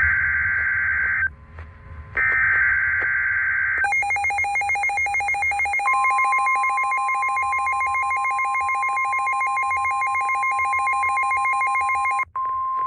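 Emergency Alert System SAME data bursts: two loud bursts of rapid, warbling digital tones, then a steady electronic alert tone. A second, higher steady tone joins about two seconds after the alert tone starts, and the tone cuts off abruptly near the end. This is the header and attention signal that open a new alert.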